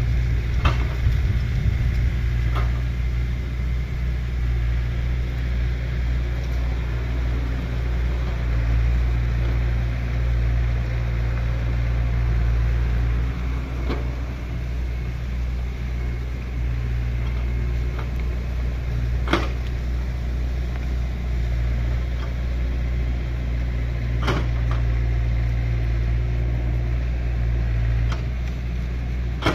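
Excavator's diesel engine running steadily with a deep low rumble, with a few short sharp knocks here and there, the clearest two near the two-thirds mark and a few seconds later.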